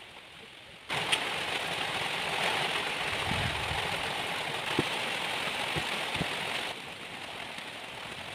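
Steady rain, an even hiss that starts suddenly about a second in and drops off abruptly about six seconds later, with a few faint knocks of drops in it.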